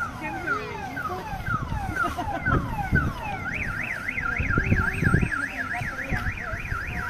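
Car alarm cycling through its tones: a run of falling chirps, about two a second, then from about halfway through a fast up-and-down warble, about three sweeps a second.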